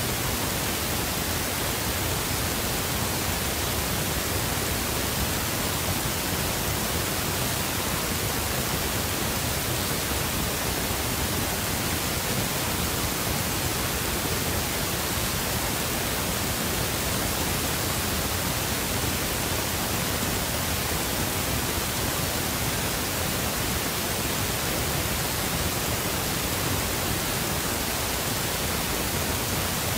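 Steady, unchanging hiss of static noise at one even level, covering everything else.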